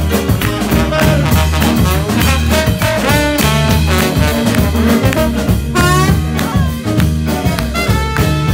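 Live soul band playing an instrumental break: a trumpet plays melodic lines over upright bass and drums, with a quick run up and down about six seconds in.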